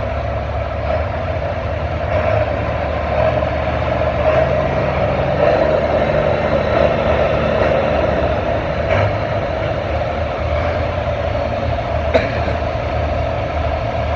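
Heavy diesel engine running steadily, swelling slightly in the middle. There is a single sharp tick near the end.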